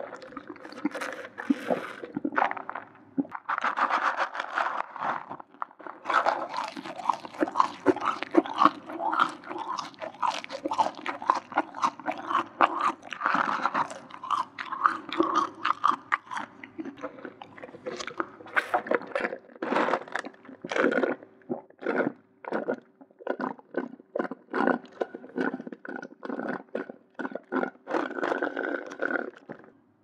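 Close-miked chewing and crunching of a McDonald's burger-and-fries meal, with dense mouth sounds. The chews come packed close together for most of the time, then as separate strokes in the last third.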